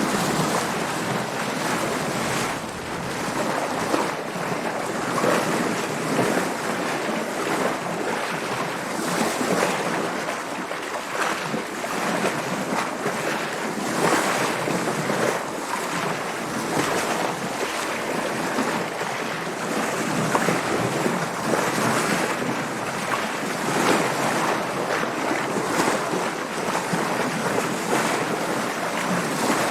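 Sea water splashing and washing against a sailing boat under way, with wind, an even rush that swells in irregular surges every second or two.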